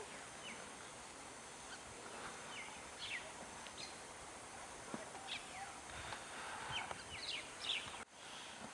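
Rural field ambience: scattered short, falling bird chirps over a steady background hiss.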